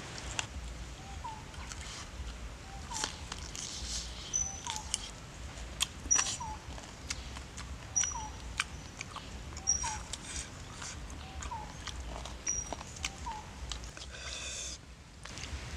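An animal calling a short rising note over and over, about once a second, with a few thin high notes in between. Scattered sharp clicks and taps are the loudest sounds.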